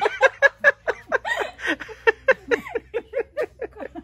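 A woman laughing helplessly in a quick run of short ha-ha pulses, about four a second.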